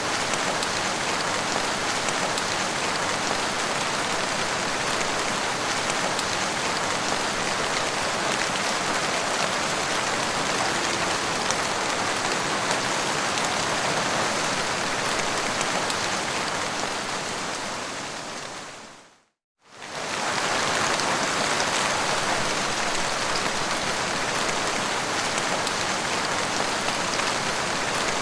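Heavy rain drumming steadily on a car windshield. The sound fades out to a second of silence about two-thirds of the way through, then comes back at full strength.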